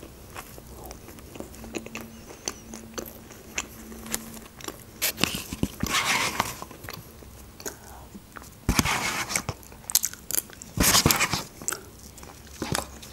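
Close-miked eating: chewing a mouthful of doner wrap with small wet mouth clicks, then soup taken off a spoon from a paper cup in three louder slurping sips in the second half.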